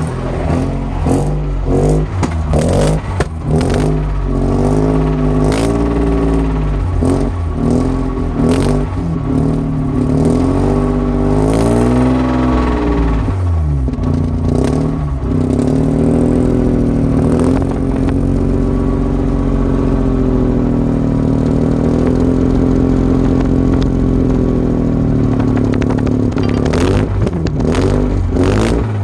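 Mazda RX-8's two-rotor Renesis rotary engine running with its revs rising and falling a few times. An intermittent rattling noise comes from the engine.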